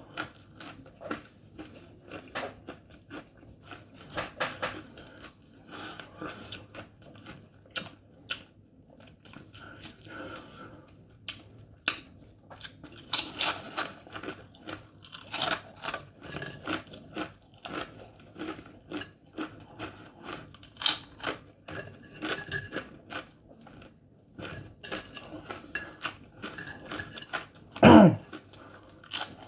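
Someone chewing dry, very hot corn chips fast, with many short sharp crunches. Near the end comes a single loud, short vocal sound that falls in pitch.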